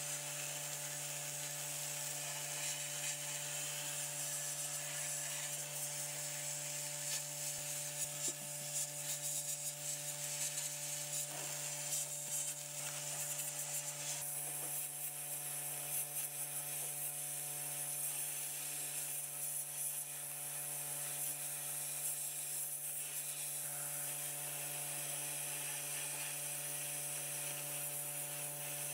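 A power tool running steadily: an even motor hum under a hissing, scratching noise, with scattered clicks about a third of the way in.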